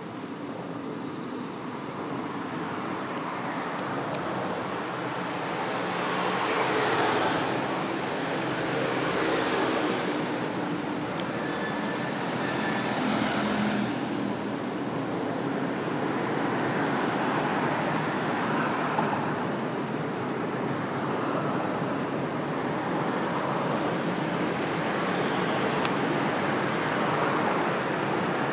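Road traffic: vehicles passing one after another, a continuous rush that swells and fades every few seconds.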